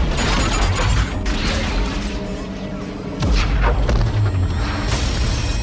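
Action-film trailer soundtrack: dramatic music mixed with explosions and several heavy crashing impacts over a deep rumble, growing louder a little past the middle.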